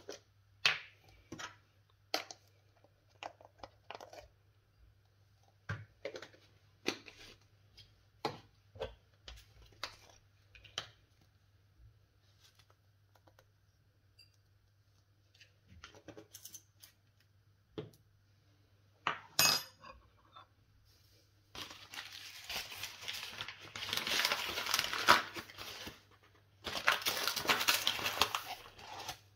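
Kitchen handling sounds: scattered clicks and knocks of utensils and dishes, a louder knock about two-thirds of the way through, then two stretches of steady noise several seconds long near the end.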